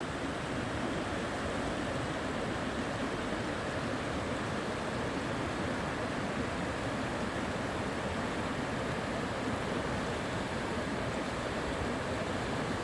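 A river flowing, a steady rushing of water.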